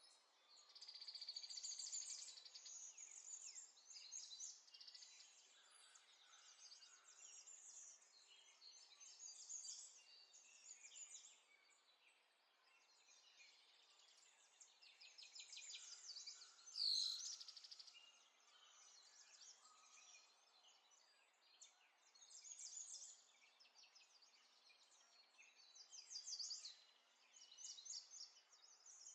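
Faint birdsong: many small birds chirping and trilling in quick high runs, with one louder, downward-sweeping call about 17 seconds in.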